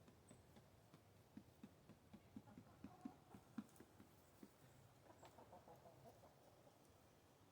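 Near silence with chickens clucking faintly: a run of short, soft, low clucks a few a second in the first half, then a few scattered ones.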